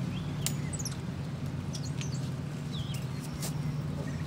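Several short high chirps, from birds or the capuchin, over a steady low hum, with a couple of brief sharp clicks.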